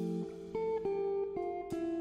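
Background music: a plucked guitar melody, a new note every half second or so.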